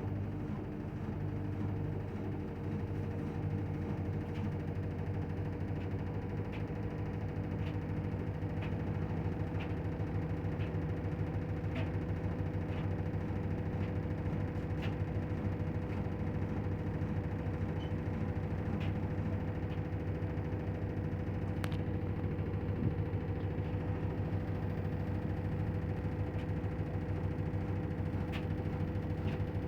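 LG front-loading washing machine spinning steadily on its cotton-programme spin at up to 1200 rpm: an even motor-and-drum hum with faint light ticks about once a second.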